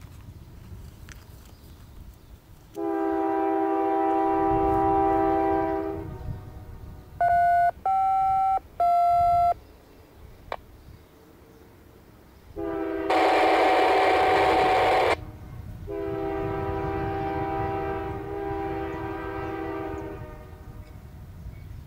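Locomotive air horn blowing a series of long blasts for street crossings, one blast louder with train rumble under it. Between the first two long blasts, a different horn gives three short blasts.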